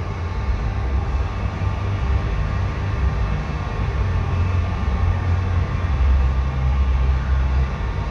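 Steady low rumble of a paint spray booth's ventilation fans running during spraying, muffled through the booth's glass wall.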